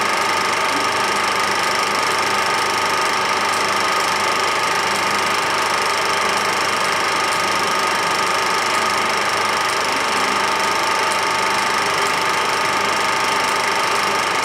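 Film projector running: a steady mechanical whirr that stays the same, with no other sound over it.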